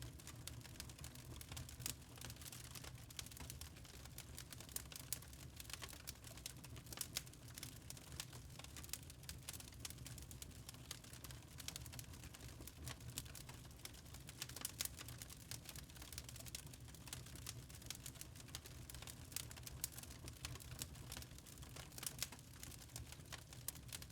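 Wood fire crackling in a fireplace: many small, irregular pops and snaps over a low, steady rumble.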